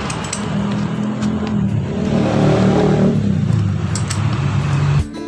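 A motor vehicle engine running and revving, growing louder about halfway through, with a few light metal clinks. It cuts off abruptly near the end as guitar music starts.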